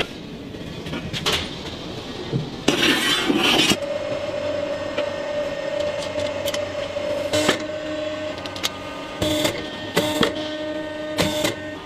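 Cast-iron woks being handled, with metal clanks and a second-long rush of scraping noise about three seconds in. Then a riveting machine's motor hums steadily while a handle is riveted onto a wok, with several sharp metal knocks over the hum.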